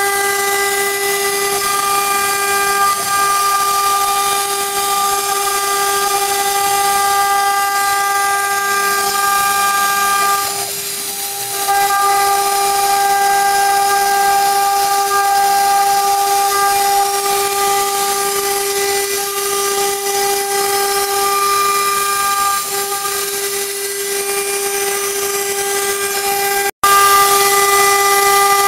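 CNC router spindle whining at a steady high pitch over a hiss as its small bit cuts a fretwork pattern through a sheet. The whine dips briefly around the middle, then cuts out for an instant near the end and comes back a little louder.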